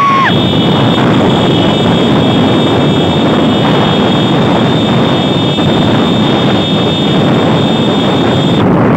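Loud, steady rush of wind and road noise from a moving motorbike, with a thin, steady high whine above it.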